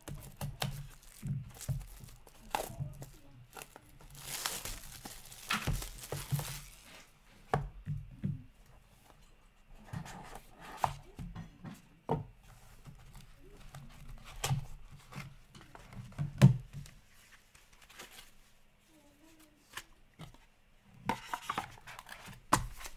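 Cellophane shrink-wrap being slit and torn off a cardboard trading-card box, crinkling most densely a few seconds in. It is followed by the box being opened and cards handled, with scattered taps and knocks, the loudest a single knock about two-thirds of the way through.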